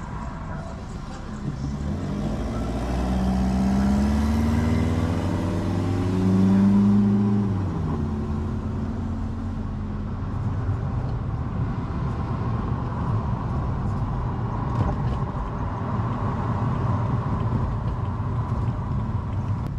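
Car engine accelerating from a standstill, its pitch climbing twice over several seconds, then easing off into steady engine and tyre noise at cruising speed.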